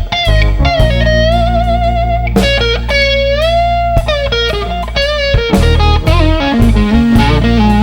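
Fender Telecaster electric guitar playing a live blues-rock lead over bass and drums. It holds a note with vibrato, bends slowly up into a long sustained note about three seconds in, then runs quicker phrases near the end.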